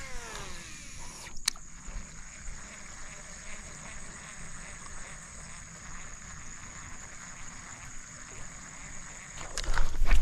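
Quiet marsh ambience: a steady high-pitched insect drone over a low wind rumble, with a single sharp click about one and a half seconds in. The falling glide of a sound effect dies away in the first second. Close rustling and knocks of the camera being handled come in near the end.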